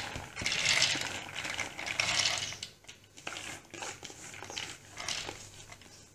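Washed split chickpeas (chana dal) pouring from a bowl into a clear plastic chopper jar: a dense rush of grains clattering onto the plastic for about two and a half seconds, then scattered clicks as the last few are pushed in.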